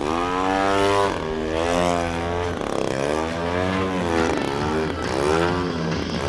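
Single-cylinder two-stroke gas engine (Desert Aircraft DA-60) of an 89-inch Slick radio-control aerobatic plane, its pitch swelling up and down about five times as the throttle is worked through 3D manoeuvres.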